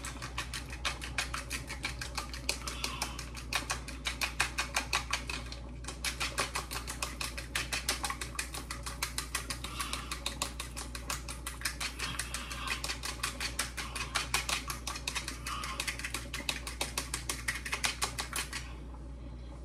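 A fork beating an egg in a small bowl: fast, steady clicking of the tines against the bowl, with a short break about six seconds in, stopping shortly before the end.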